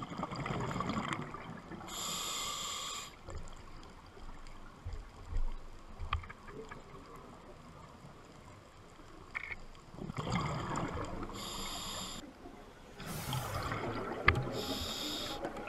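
A scuba diver breathing through a regulator underwater, twice. Each breath is a hiss of air through the regulator and a bubbling rush of exhaled air.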